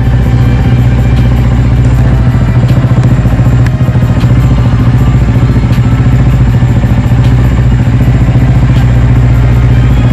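Honda Rebel motorcycle engine idling steadily, close by.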